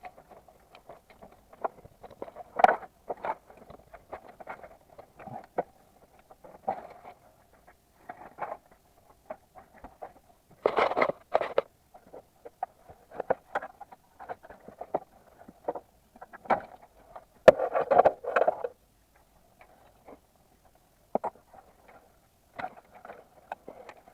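Hand tools working on the engine: irregular metallic clicks, knocks and short scrapes, with louder clusters about eleven and eighteen seconds in.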